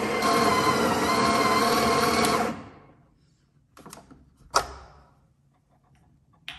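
Breville espresso machine's built-in burr grinder running steadily as it grinds coffee into the portafilter, stopping about two and a half seconds in. Then a few short knocks as the portafilter is handled, the loudest about four and a half seconds in.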